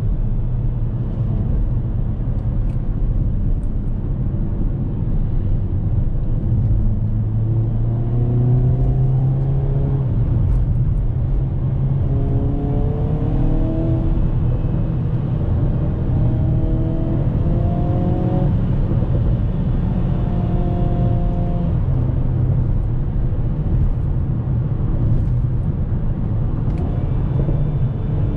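Hyundai Kona N's 2.0-litre turbocharged four-cylinder engine driving under load over a steady low road rumble. From about a third of the way in, the engine note climbs in several short steps, dropping back in pitch between them at the gear changes of the 8-speed dual-clutch gearbox, then settles into a steady run.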